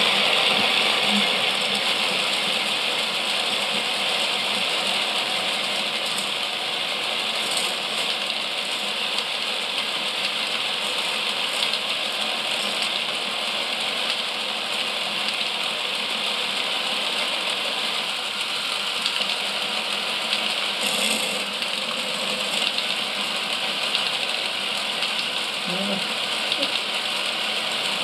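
Mould King 11012 motorised brick-built roller coaster running, its motor-driven lift chain and cars making a steady mechanical noise.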